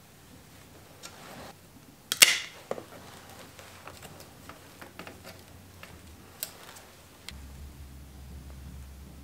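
Bicycle hand tools, a hex wrench and a cable cutter, working the shift cable at a SRAM X9 rear derailleur: one sharp metallic snap about two seconds in, the loudest sound, then a few lighter clicks.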